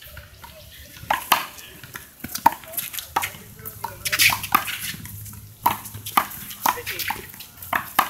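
One-wall handball rally: a small rubber handball smacking off gloved hands and the concrete wall, a string of sharp slaps about half a second to a second apart.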